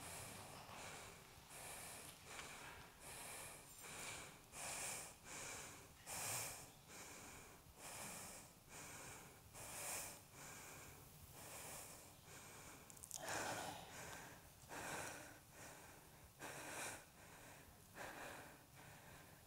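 A Kathak dancer's faint, quick, heavy breathing: short puffs in and out, roughly one a second, as she catches her breath.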